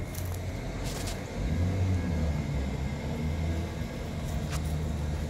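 Low rumble of vehicle traffic on the bridge overhead, swelling about a second and a half in.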